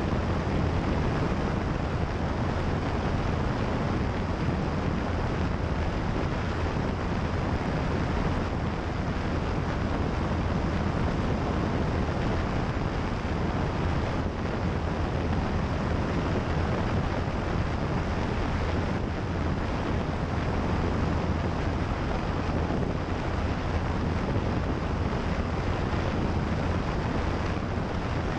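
Single-engine light airplane in flight: the piston engine and propeller give a steady drone under a heavy rush of wind over the microphone of a camera mounted outside on the wing.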